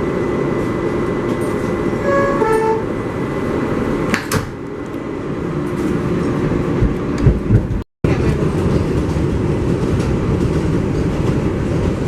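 Steady running noise inside an R188 subway car. About two seconds in, the two-note descending door chime sounds as the doors close. A sharp knock follows a couple of seconds later, and the sound cuts out briefly near the end.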